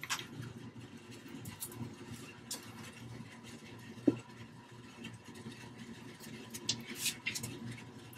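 Wooden panels of a large box knocking and scraping as the box is handled and tipped over, with one louder knock about four seconds in and a few sharp clicks, over a steady low hum.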